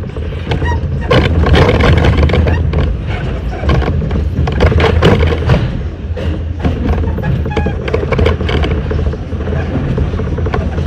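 R68 subway train running through a tunnel and into a station: a steady low rumble with the wheels clicking and clattering on the rails.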